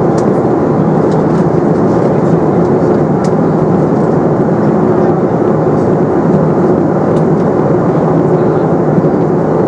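Steady cabin noise of a Boeing 737-300 in flight: the even rush of its CFM56-3 engines and the air streaming past the fuselage.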